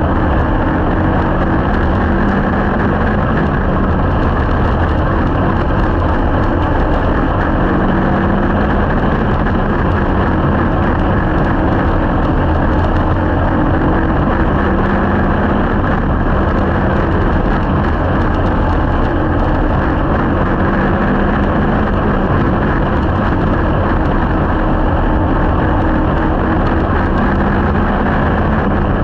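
Slingshot race car's engine running hard, recorded from the onboard camera, with its pitch rising and falling every several seconds as the car is driven around the track. Loud and unbroken throughout.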